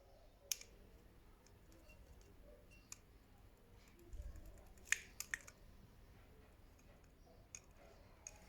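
Scattered sharp clicks and light knocks, about seven of them spread over several seconds, the loudest about half a second in and a quick group of three around the middle, against faint room tone with a brief low rumble just before the group.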